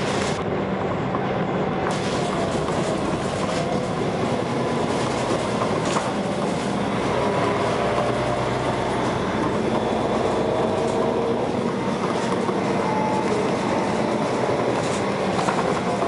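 Inside a Dennis Arrow bus under way: the diesel engine and ZF automatic gearbox run steadily under the rattle of the body and fittings. A faint whine slowly rises in pitch through the middle as the bus gathers speed.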